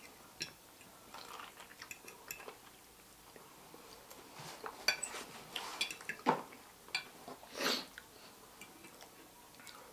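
Fork clinking and scraping against dinner plates during a meal, faint scattered clicks and taps, with a couple of louder short sounds about six and seven and a half seconds in.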